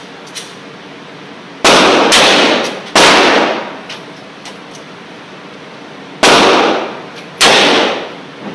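Revolver fired five times at an indoor range. Three shots come in quick succession, then two more after a pause of about three seconds, each with a long echoing tail off the range walls.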